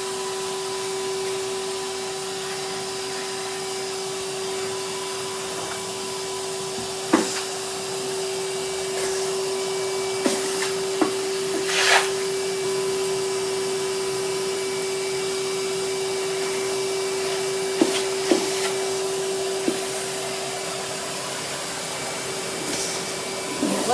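Vacuum cleaner running steadily with one constant motor tone, with a few sharp knocks scattered through, as the nozzle bumps against things.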